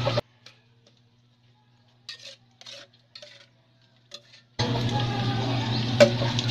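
A metal spatula stirs and scrapes in a wok of chilies frying in oil, over an even sizzling hiss and a steady low hum. Shortly after the start the sound drops almost to nothing, leaving only a few faint scrapes, and the full frying and stirring noise returns a little over halfway through.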